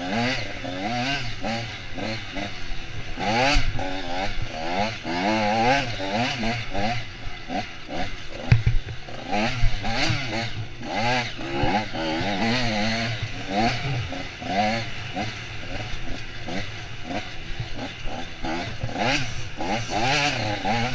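Off-road dirt bike engine heard close up under race riding, its revs climbing and dropping again and again as the throttle is worked. A single sharp thump about eight and a half seconds in.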